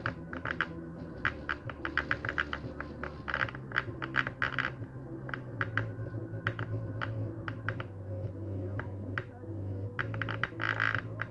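Fishing reel knocking as it is cranked: rapid clusters of sharp clicks, a knock in the reel's mechanism, over a steady low hum.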